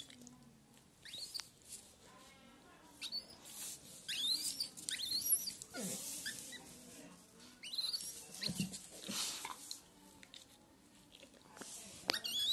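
Infant langur giving repeated high-pitched squeals and shrieks in short bouts while a Rottweiler nuzzles and mouths it, with a lower moaning cry about halfway through.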